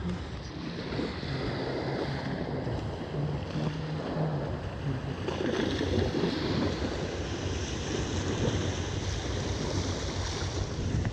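Small waves washing steadily onto a sandy shore, with wind rumbling on the microphone.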